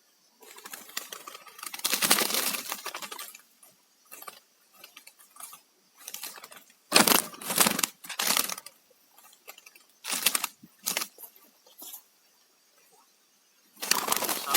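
Irregular bursts of rustling and crackling noise: a longer burst about half a second to four seconds in, a cluster of sharp bursts around seven to eight and a half seconds, shorter ones near eleven seconds, and another burst near the end.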